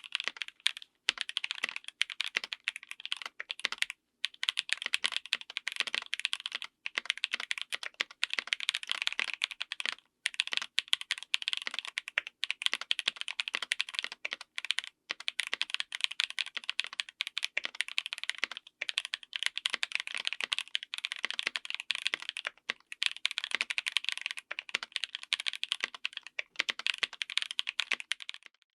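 Fast typing on a full mechanical keyboard fitted with stock, unlubed Epomaker Bluebird linear switches on an FR4 plate: a dense run of keystroke clacks and bottom-outs, broken by short pauses.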